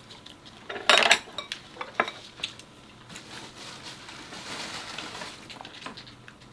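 Dishes and eating utensils clinking and clattering at the table: one loud clatter about a second in, then scattered lighter clinks.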